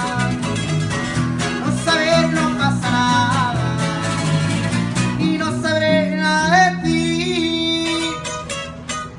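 A small acoustic band playing: an electric bass line under strummed and picked acoustic guitar and twelve-string guitar, with a wavering melody line above. The playing thins out and drops in level near the end.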